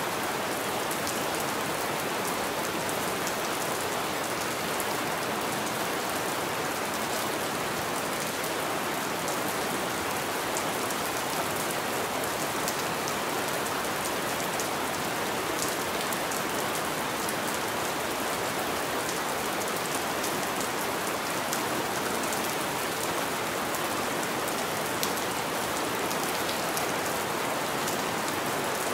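Steady rain on a window, an even hiss of rainfall with many fine drop ticks scattered through it.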